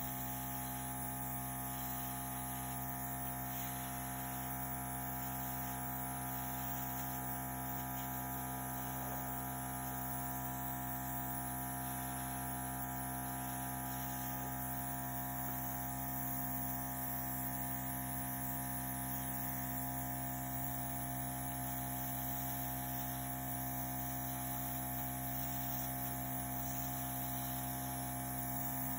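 Airbrush compressor running with a steady hum, with a constant hiss of air from the airbrush as it blows wet acrylic paint across the canvas.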